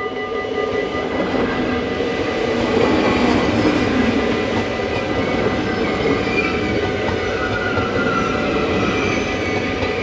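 A train passing over a Dutch level crossing: the noise of its wheels on the rails swells over the first few seconds and then holds steady. The crossing's warning bell keeps ringing beneath it as a steady tone.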